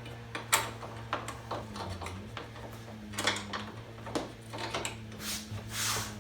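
Metal clinks and taps of bolts and spacers being handled and fitted to a shock-mount bracket, scattered irregularly, with a short scraping sound about five seconds in. A steady low hum runs underneath.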